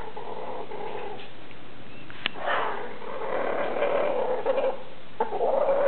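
Domestic chickens in the nest boxes making low, drawn-out calls: one near the start, a longer one beginning about two and a half seconds in, and another near the end. A single sharp click comes just before the long call.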